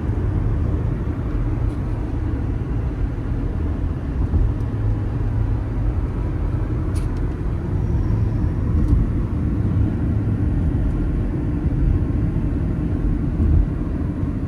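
Steady rumble of a car driving, heard inside the cabin, with the air conditioning fan on full blast.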